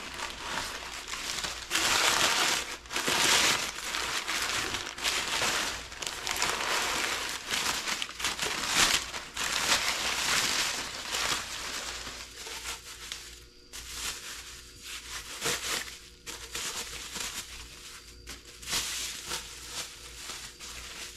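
Brown kraft packing paper and plastic bubble wrap crinkling and rustling as they are pulled from a box and unwrapped from a cast metal part. The rustling is loudest in the first half and becomes quieter and more scattered later.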